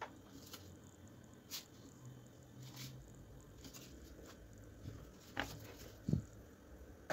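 Handling noise from a tubular Bluetooth speaker's casing being turned over in the hands: scattered soft taps and clicks, with a dull thump about six seconds in.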